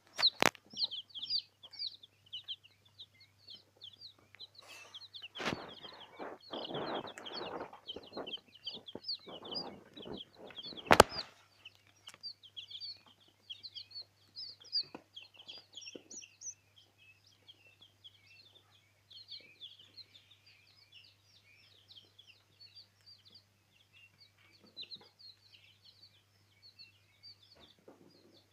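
A brood of young chicken, quail and pheasant chicks peeping continuously at high pitch. Roughly a third of the way in comes a few seconds of rustling, then a single sharp click.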